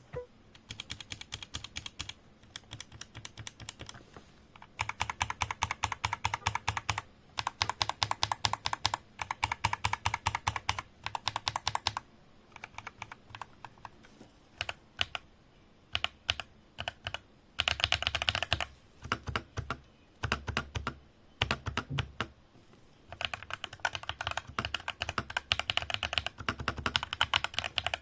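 Typing on a tape- and foam-modded E-Yooso Z686 mechanical keyboard: rapid runs of keystrokes in bursts of a second or two, with brief pauses and a sparser stretch of scattered key presses in the middle.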